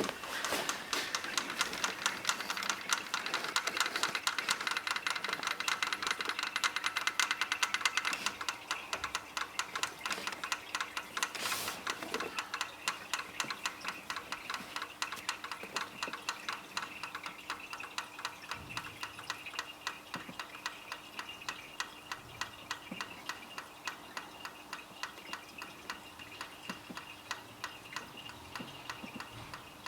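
Jeep Wrangler 4.0 straight-six, just switched off, ticking rapidly and evenly from its valve train, fading slowly. The owner can feel the ticking in the valve springs and does not know its cause; it comes after every rotation of the engine.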